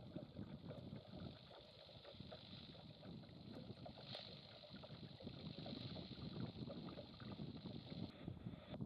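Faint wind rumble and water noise aboard a sailing boat under way, uneven and gusty, with a steady high hiss over it that cuts off suddenly near the end.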